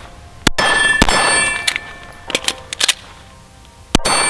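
Glock 19 9mm pistol firing several shots at an uneven pace. A few of the shots are followed by a long metallic ringing.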